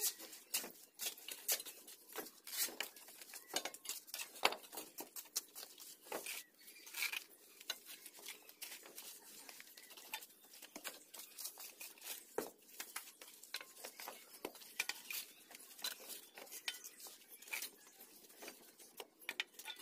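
Bricklaying work: irregular clinks, knocks and scrapes of fired red clay bricks being picked up, set down and worked into place by hand.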